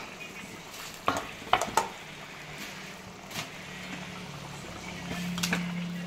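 A steel spoon scraping and clinking against a steel kadai and plate as mashed boiled potatoes are spooned into simmering tomato gravy and stirred in, with a handful of sharp clinks. A low steady hum runs underneath and grows louder in the second half.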